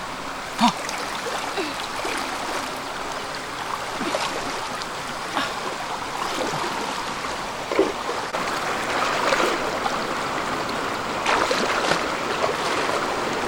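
Stream water running, a steady rushing, with a few brief faint sounds on top of it.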